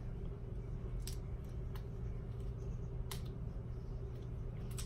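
About four light, sharp clicks spread over a steady low hum: hair clips and a comb being handled while sectioning hair.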